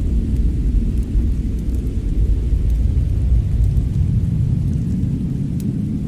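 Steady low rumble of a winter storm and fireplace ambience, with a few faint fire crackles, one a little clearer near the end.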